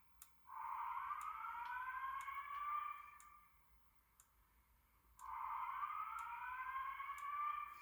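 EST Genesis fire alarm speaker strobe sounding an evacuation sweep tone: a rising siren-like sweep about two and a half seconds long, heard twice, as part of a Simplex 4003EC-style voice evacuation message.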